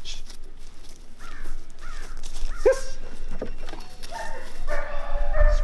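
A dog barking and yelping a few times in short calls, then a longer drawn-out call near the end.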